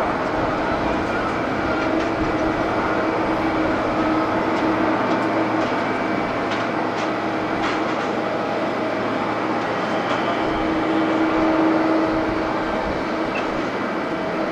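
Jet airliner engines running steadily on the ground, a continuous rumble with a few steady whining tones, swelling a little about eleven seconds in.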